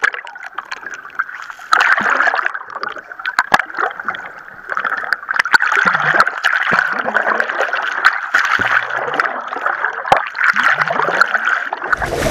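Water rushing and bubbling, heard muffled from underwater, with many scattered small clicks and knocks. Near the end the sound breaks abruptly into open-air wind and boat noise as the microphone comes out of the water.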